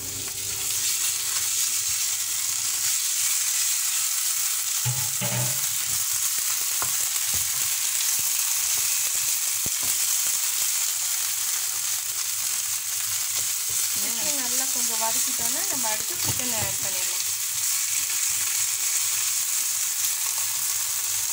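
Chopped onions, curry leaves and freshly added green ground paste sizzling steadily in hot oil in a non-stick frying pan, stirred with a wooden spatula.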